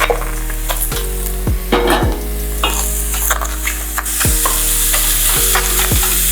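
Raw chicken pieces sizzling in a hot, dry pan with no oil, the sizzle growing louder about three seconds in, with scattered knocks of pieces and utensil against the pan.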